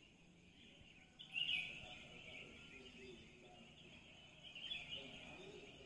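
Faint birds chirping in the background, with a louder flurry of chirps about a second and a half in and another near the end.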